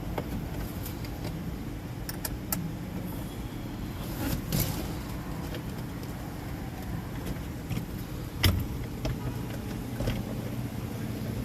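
Metal parts and hand tools clicking and knocking during reassembly of a Porsche 356 shifter, a handful of sharp clicks with the loudest knock about eight and a half seconds in, over a steady low hum.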